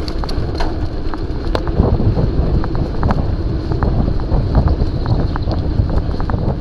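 Wind buffeting the microphone and steady tyre rumble as a Scott mountain bike rolls fast down a tarmac path, with scattered light clicks and rattles.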